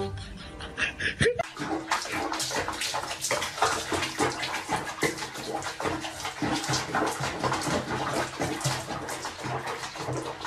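Bath water splashing and sloshing in a tub of foamy water, starting about a second in.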